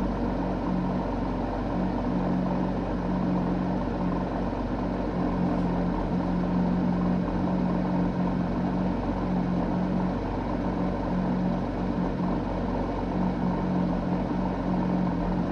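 Porsche 911 GT3 (991) engine, a flat-six, running at a steady speed and heard inside the cabin as a constant drone with a strong low hum. This is the in-cabin exhaust drone being measured after sound-deadening mat was laid over the rear deck area, which leaves it only slightly quieter.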